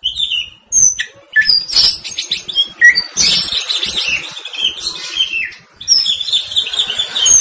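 White-rumped shama (murai batu) in full song: a fast, dense run of varied whistles, glides and harsh short notes, broken by brief pauses about a second in and again past the middle.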